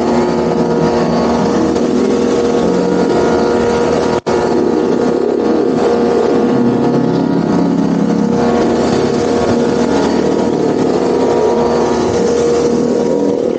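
Pressure washer running steadily, its motor and pump giving a constant whine over the hiss of the water jets from a rotating two-nozzle cleaning attachment working on decking. The sound cuts out for a split second about four seconds in.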